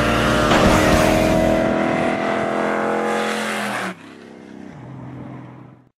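Race car's engine at full throttle accelerating down a drag strip, its pitch climbing slowly. It cuts off suddenly about four seconds in, leaving a quieter engine hum that fades out.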